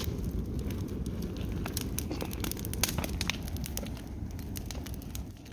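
Large teepee-stacked bonfire of branches burning after being lit, with a steady low rush and frequent sharp crackles and pops of the burning wood; one loud pop right at the start and another about three seconds in.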